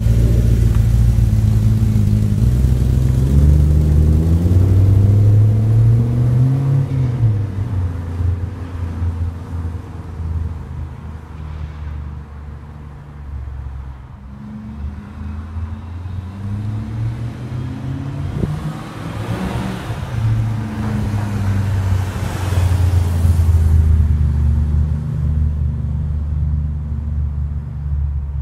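BMW E34 540i's V8 engine running with a deep rumble, its revs rising and falling several times.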